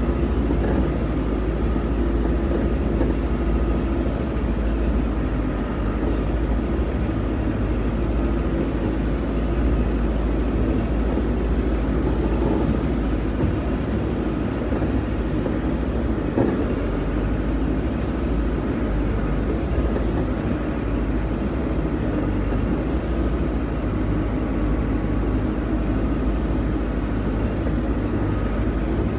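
Heavy diesel machine running steadily as it drives slowly along a sandy dirt track, heard from on board: a constant low engine rumble with no changes in pitch.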